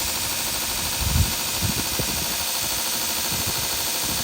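Grizzly 2x42 belt grinder running steadily, a constant high hiss from the motor and the moving 120-grit belt. A few low thumps come about a second in.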